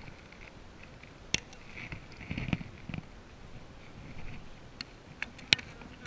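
Metal hive tool and wooden frames knocking and clicking against the hive box as a frame is pried loose and lifted out of a honeybee hive. There are a few sharp clicks, one about a second in and several close together near the end, the loudest just before it ends.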